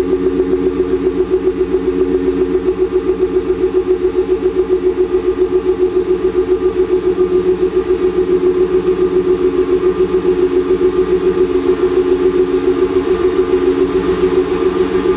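2008 Ford F-150 FX2 idling steadily through its stock exhaust, heard at the tailpipe as an even, pulsing exhaust note with no revving.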